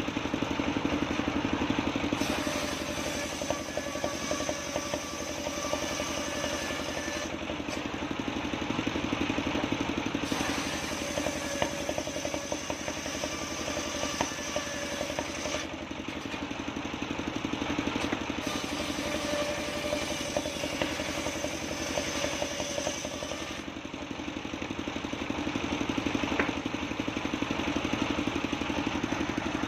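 A homemade table circular saw runs steadily while ripping sengon (Falcataria) boards, in several cutting passes of a few seconds each with short pauses between them. A hissing cut sound rises over the machine's steady hum during each pass.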